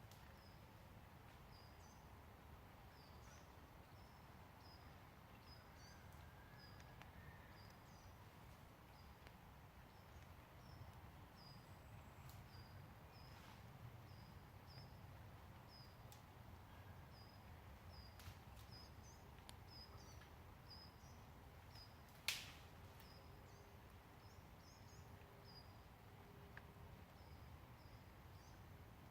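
Faint woodland quiet with a small bird calling over and over: short high chirps, a little faster than one a second. A single sharp click sounds about three quarters of the way through.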